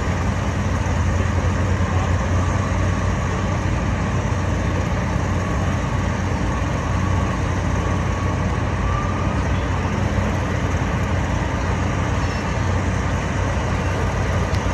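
Heavy diesel engines of concrete trucks and pumps running steadily at a concrete pour, a constant low drone with no breaks.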